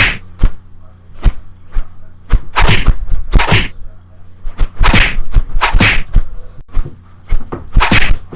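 A funny ringtone made of sound effects: a quick, irregular string of sharp whacks and knocks mixed with short swishing bursts, over a steady low hum.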